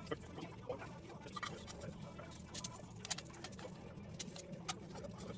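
Scattered light clicks and clinks of hand tools, clamps and steel parts being handled on a concrete floor, irregular with a few sharper ones, over a low steady hum.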